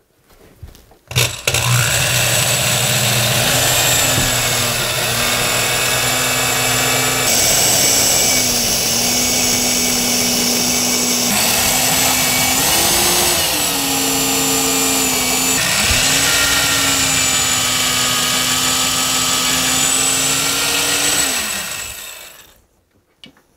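Corded electric drill boring holes into the wall studs for a TV wall mount, the motor running at speed with its pitch sagging and recovering as the bit bites. The sound changes abruptly three times, giving four long stretches of drilling, and stops near the end.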